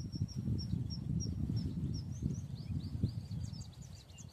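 A small bird calling in a run of short high chirps, about three a second, turning into quicker sliding chirps in the second half. Under it, an uneven low rumble on the microphone, the loudest sound, swelling at the start and fading near the end.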